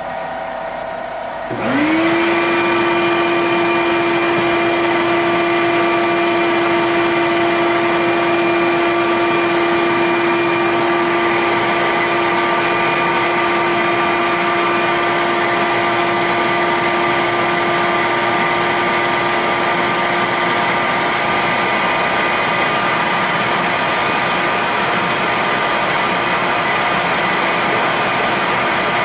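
Spindle motor of a Central Machinery mini milling machine converted to CNC spins up about a second and a half in and settles into a steady whine while the end mill cuts a pocket in a graphite block. A steady rushing noise runs underneath.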